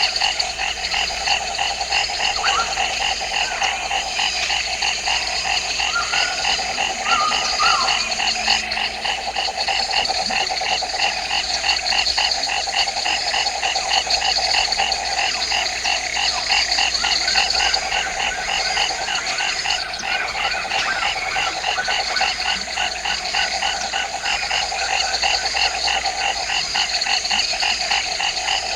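Dense chorus of frogs calling together, several kinds overlapping: a steady low trilling and evenly repeating pulsed calls a few times a second, with a few short chirps in the first several seconds.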